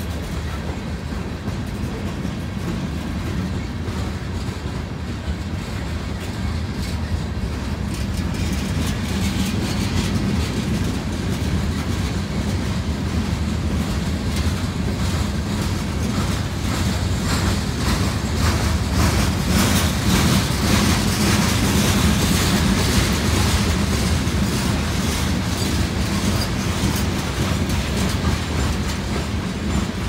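Freight train of hopper cars loaded with crushed stone rolling past, a steady rumble with the wheels clicking over rail joints; it grows louder from about eight seconds in, the clicking thickest through the middle and latter part.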